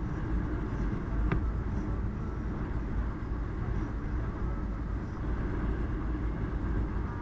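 Car driving along a road: a steady low rumble of engine and tyre noise, with one short click just over a second in.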